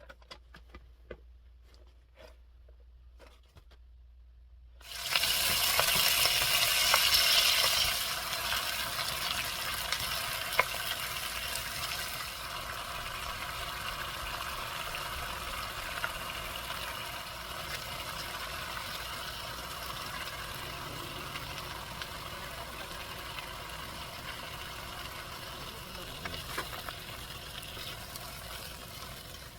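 Food sizzling in a hot frying pan, starting suddenly about five seconds in after a few light clicks, loudest for the first few seconds, then settling to a steady, slowly fading sizzle.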